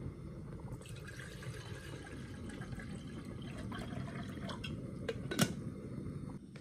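Water poured from a glass jug into a metal saucepan, a steady splashing pour. A single sharp knock sounds about five seconds in.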